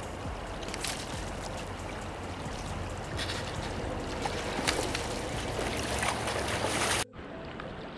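Steady rush of flowing river water, growing slightly louder with a few brief louder surges. It cuts off suddenly about seven seconds in, giving way to a quieter, duller rush.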